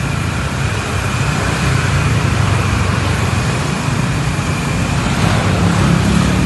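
Road traffic: a steady low rumble of vehicle engines and tyre noise, with no horn.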